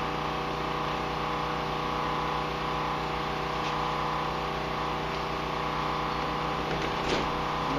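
Steady mechanical hum that holds an even pitch throughout, with a couple of faint clicks from parts being handled.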